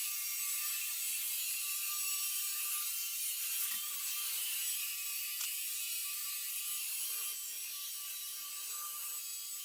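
iRobot Roomba robot vacuum running: a steady high-pitched whirring hiss with a faint constant whine and light mechanical rattling.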